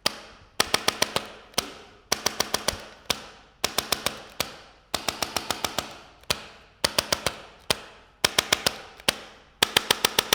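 Handheld chiropractic adjusting instrument firing along the patient's back: one sharp click, then a rapid burst of five or six clicks, over and over about every second and a half.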